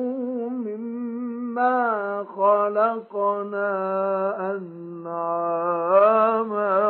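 A male Quran reciter chanting in the mujawwad style, drawing a long, ornamented melodic line with a wavering pitch, broken briefly twice near the middle. The recording is dry, without added echo.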